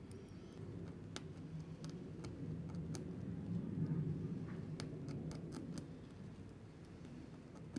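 Light scratching and scattered small clicks from the gage's small counter gear parts being scuffed and handled by hand, over a steady low hum.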